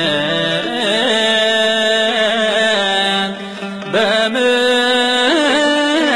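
Music of an Ethiopian Orthodox Tewahedo repentance hymn (mezmur): an ornamented melody with gliding notes over a sustained low accompaniment. It dips briefly a little after three seconds, then comes back in.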